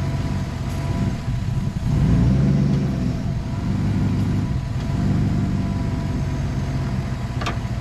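Car engine idling unevenly, its speed swelling and sagging about two and five seconds in, as it struggles on a heavy dose of Sea Foam sprayed into its intake.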